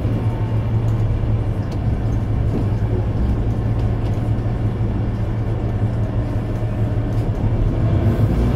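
Mercedes-Benz Citaro C2 Ü Hybrid city bus's diesel engine idling with the bus standing still, a steady low hum.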